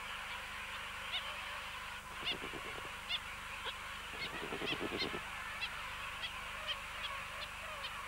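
King penguin colony: a steady hiss of many birds, with frequent short, high calls about twice a second and two longer, lower calls, the first a couple of seconds in and the second about halfway.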